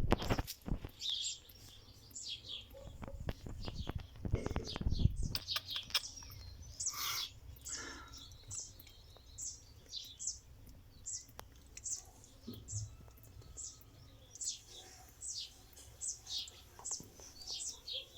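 Rustling and knocking of handling close to the microphone for the first few seconds, the loudest part. Then small birds chirping steadily in short, high, falling notes, two or three a second.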